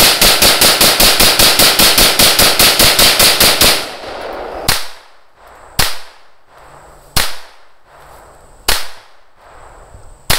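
Gunfire: a rapid string of about twenty shots fired in under four seconds, then five single shots spaced a second or more apart.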